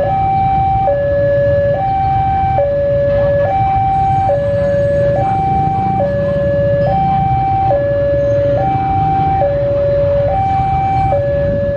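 Railway level-crossing warning alarm sounding a steady two-note electronic hi-lo tone, switching pitch a little under once a second, over the low rumble of an idling diesel locomotive. The alarm signals that the crossing is closed for the train.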